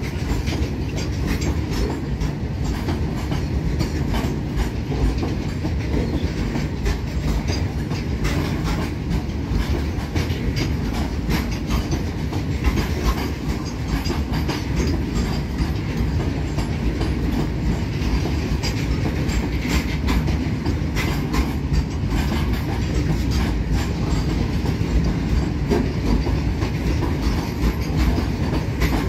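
Goods train rolling past at steady speed: a continuous rumble of wagons with a constant run of clicks from the wheels passing over rail joints.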